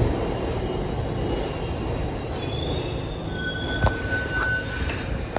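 New York City 1 train subway cars running through the station with a steady rumble that slowly fades, the wheels squealing in thin high tones from about two seconds in. A single sharp click comes near the middle.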